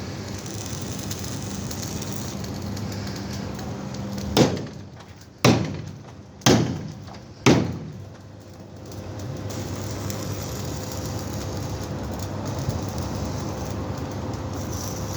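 Four sharp hammer blows on the tanker's steel body, about a second apart, each ringing briefly, over steady background noise.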